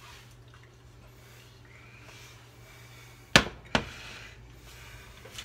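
A metal saucepan set down on a glass-top electric stove: two sharp clanks less than half a second apart, a little over three seconds in, over a steady low hum.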